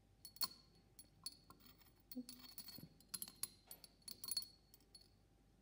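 Glass stirring rod tapping and clinking against the inside of a glass test tube as water and sand are stirred: many small, irregular clinks with a brief high ring.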